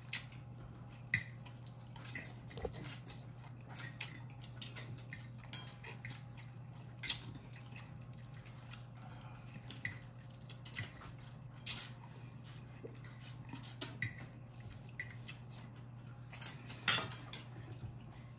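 Chopsticks and forks clicking and scraping against ceramic bowls, with noodles being slurped, as several people eat quickly. The clicks come irregularly over a steady low hum, the sharpest near the end.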